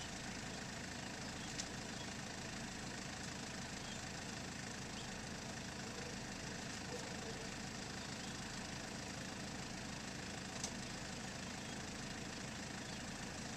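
Small farm tractor engine idling steadily, with a brief sharp click about a second and a half in and another about ten seconds in.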